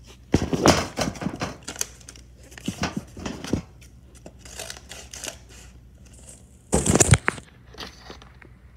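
Paper and plastic packaging rustling, crinkling and tearing in irregular bursts as a packet is opened by hand, with a louder burst about seven seconds in.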